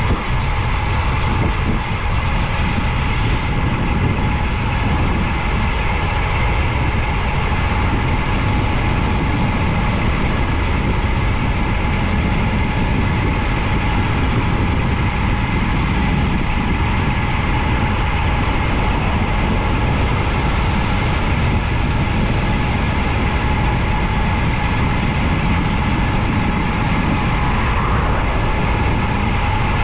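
Steady rush of wind over a bike-mounted camera's microphone on a fast road-bike descent, with a few steady tones riding above the noise.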